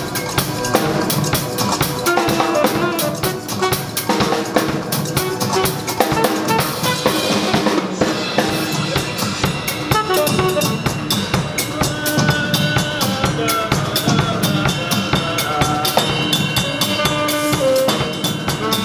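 A saxophone and a drum kit playing jazz together: busy snare, rimshots, bass drum and cymbals under a sustained saxophone line.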